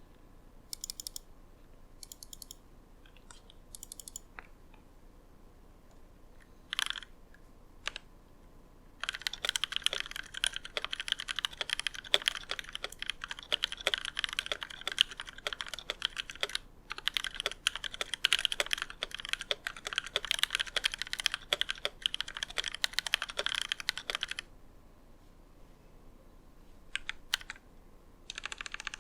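Typing on an ID80 mechanical keyboard with lubed Novelkeys Cream linear switches, GMK Cyan keycaps and foam under the PCB. A few single key presses over the first several seconds, then fast continuous typing for about fifteen seconds with a short break partway, then a few more presses near the end.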